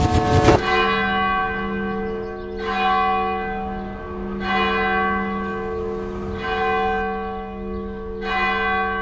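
A large church bell tolling: five slow strokes about two seconds apart, each ringing on into the next.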